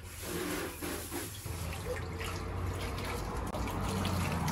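Water poured from a plastic tub over a small dog standing in a paddling pool, trickling and splashing into the pool water, growing steady about a second and a half in.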